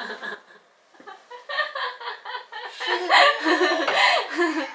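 A woman laughing in several short bouts that rise and fall, starting about a second and a half in.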